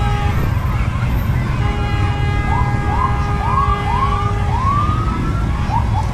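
Motorcycle engines rumbling as a group rides past. A steady horn-like tone sounds at the start and again for a few seconds, and from about two and a half seconds in a siren gives a run of short rising whoops, each a little longer than the last.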